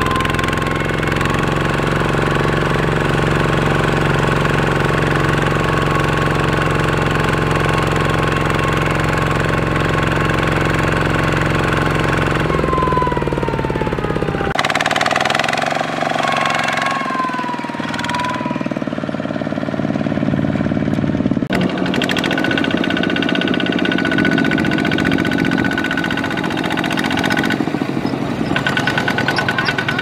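Single-cylinder diesel engine of a two-wheel walking tractor running steadily under load. The engine sound changes abruptly twice where clips are joined.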